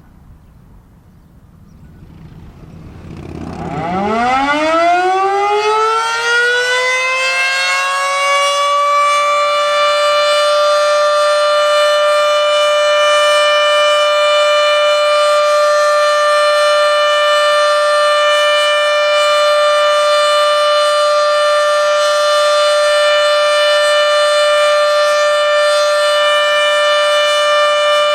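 Federal Signal Model 7B outdoor warning siren winding up about three seconds in, its pitch rising and levelling off into a steady alert tone that holds; it is extremely loud despite not reaching full pitch.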